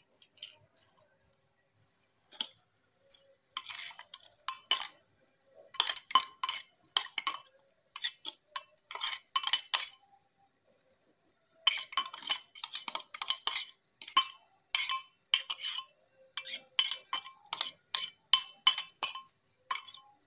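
A metal spoon clinking and scraping against a mixer-grinder jar and a steel bowl as ground radish is scooped out. The clinks come in quick runs, with a short pause near the middle.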